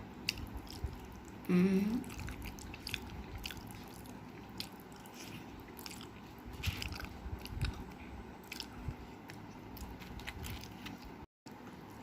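Close-up eating sounds: a person chewing rice and dal, with scattered wet mouth clicks and smacks. A short hummed voice sound comes about a second and a half in.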